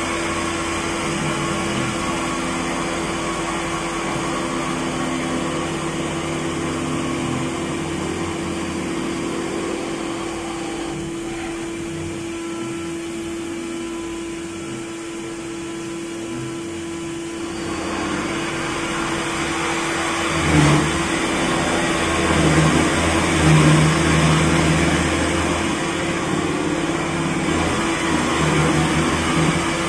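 CNC machining centre face-milling a cast-iron block under flood coolant: a steady spindle tone over the cutting noise. The cut eases off and quietens for a few seconds in the middle, then grows louder and heavier with a low rumble as the cutter bites deeper in the second half.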